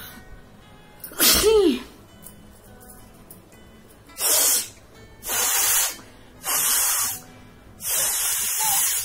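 A woman sneezes once, loudly, with a voiced 'choo' that falls in pitch. About three seconds later come four forceful hissing rushes of air through the nose, each under a second long, like hard nose blows or snorts.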